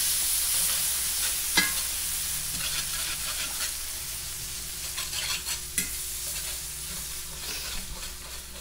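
Beef broth sizzling in a hot cast-iron skillet of onions, mushrooms and flour roux as it is stirred, with a sharp click of the utensil against the pan about one and a half seconds in and again near six seconds. The sizzle slowly dies down.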